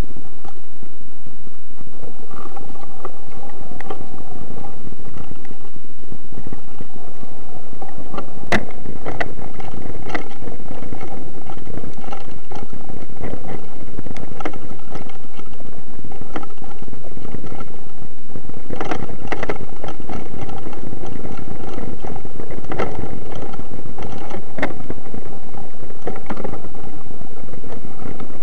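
Mountain bike ridden over a rough dirt trail, heard from a camera mounted on the bike: a loud, continuous rumble and rattle of the tyre and bike over the ground, with sharp knocks at the bigger bumps, the hardest about a third of the way through.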